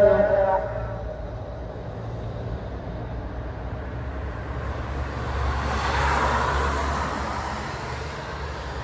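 A car passing on the street, its noise swelling to a peak about six seconds in and then fading, over a steady low hum.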